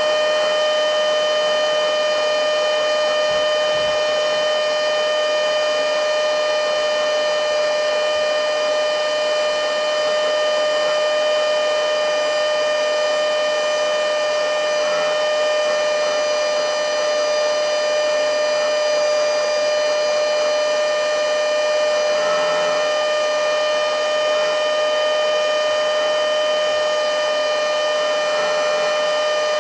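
XCQ-508 handheld blowing-and-sucking mini vacuum cleaner running continuously: a steady, loud motor whine with one strong tone and several higher ones over a rush of air. Its battery is past the point where it starts losing power, about seven minutes into a full charge.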